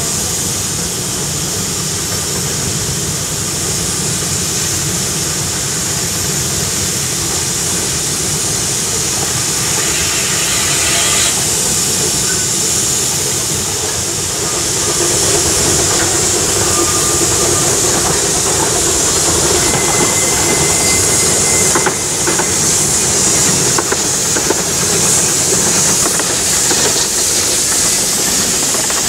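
Narrow-gauge steam locomotives at a station: a steady hiss of steam over the low rumble of the engines, with a few light knocks near the end.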